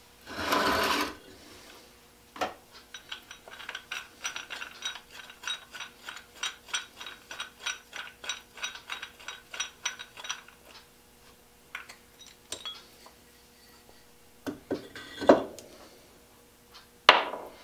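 Rapid metallic clicking, about three or four clicks a second for some eight seconds, as the metal fitting on a wooden crosscut-saw handle is worked by hand. It opens with a short scraping rub and ends with a couple of knocks as the handle is set down.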